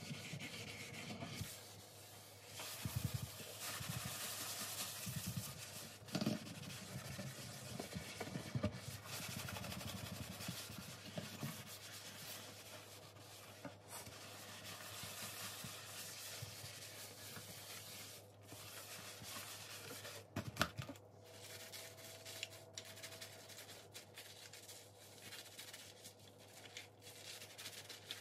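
Rubbing and scrubbing against a surface during kitchen cleaning, a continuous scratchy friction sound. A few sharp knocks break into it, the loudest about twenty seconds in.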